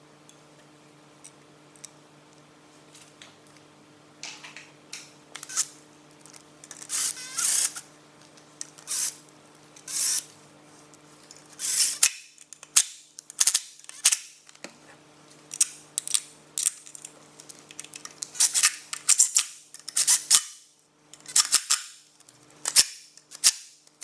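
Repeated short, irregular scraping strokes starting about four seconds in and coming faster after about twelve seconds: old sealant being cleaned off the gasket sealing faces of small engine covers on a VW 3.0 V6 TDI.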